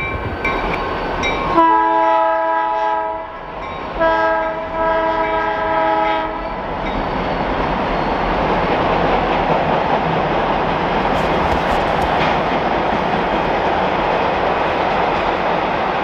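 Train horn sounding two long blasts, each a chord of several steady tones, about a second and a half in and again about four seconds in. Then a steady rumble like a passing train runs on.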